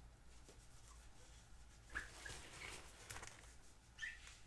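Near silence: room tone with a few faint, short, high squeaks about halfway through and again near the end.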